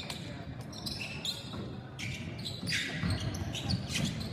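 A basketball bouncing on a hardwood gym floor during play, as several irregularly spaced thuds, with short high squeaks of sneakers on the floor between them.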